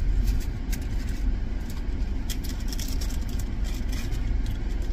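Steady low rumble inside a car, with a few light crinkles of a plastic bag being handled.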